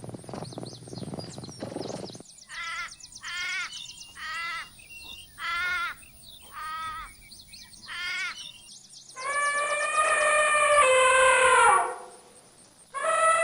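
Animal calls: a short stretch of rough noise, then six short warbling calls about a second apart, then two long calls that fall in pitch at the end.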